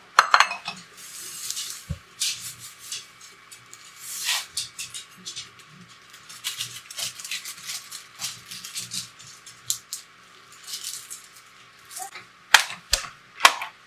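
Breadcrumbs poured from a crinkling plastic bag into a glass pie dish and spread by hand, giving a run of crisp rustles and hisses. A sharp clink as the glass dish is set on the stainless steel counter at the start, and a few sharp knocks on the counter near the end.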